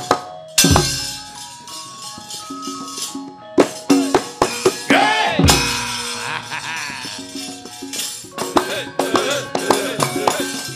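Javanese gamelan music with its pitched metal notes, punctuated by sharp, repeated metallic rattles and knocks typical of the puppeteer's kepyak plates and drum strokes that bend in pitch.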